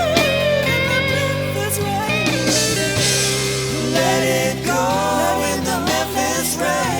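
Band music with a guitar playing bending melodic lines over held bass notes.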